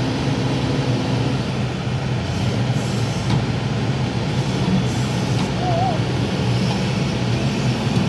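Diesel engine of a Kobelco crawler excavator running steadily.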